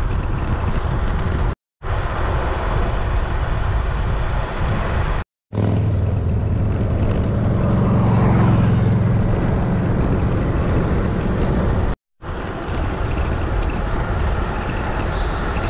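Road traffic heard from a bicycle: wind on the microphone and road noise, with a motor vehicle passing close whose engine hum swells from about six to ten seconds in and then fades. The sound drops out to silence briefly three times.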